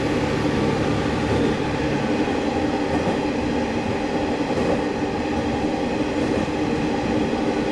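Sanriku Railway diesel railcar heard from inside the car, its engine running steadily over the rumble of wheels on the rails.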